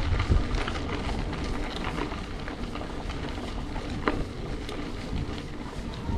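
Wind and road noise from a moving bicycle: a steady rumble with scattered small rattles and clicks, one sharper click about four seconds in.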